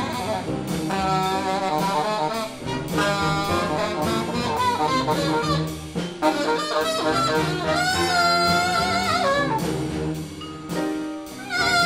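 Background music: a jazz-style tune with a brass melody over a steady drum beat, with wavering held notes about two thirds of the way through.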